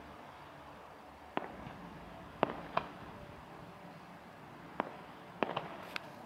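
Distant fireworks going off: a scattered series of sharp bangs, about seven in six seconds, at irregular intervals, the loudest about two and a half seconds in and three in quick succession near the end.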